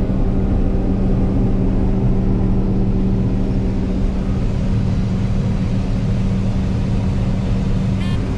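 A large farm diesel, most likely the John Deere 9660 STS combine's, running at steady working speed. It makes a continuous drone with a strong, unchanging low hum.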